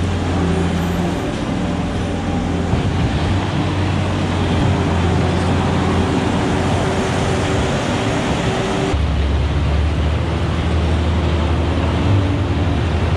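A vehicle engine running steadily and loud, with a low hum. About nine seconds in, the sound changes abruptly, as at a cut, and then runs on much the same.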